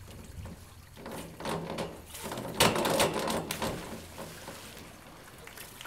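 A springboard dive: the board clatters as the diver takes off, then the diver hits the pool with a splash about two and a half seconds in, dying away over a second or two.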